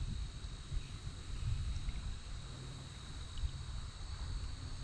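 Outdoor pond ambience: a low, uneven wind rumble on the microphone with a steady high insect drone over it and a few faint chirps.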